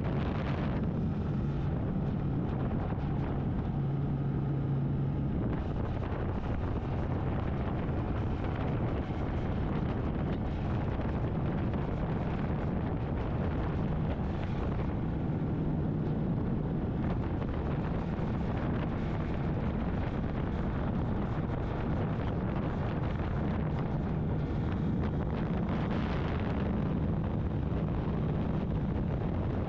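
Gatoma 200 motorcycle engine running at a steady cruise with an even low hum, under steady wind rush on the microphone.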